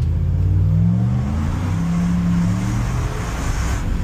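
Supercharged 5.7 Hemi V8 of a Ram 1500 pickup accelerating under part throttle, heard from inside the cab. The engine note climbs, then steps back down partway through as the transmission shifts up, and climbs again.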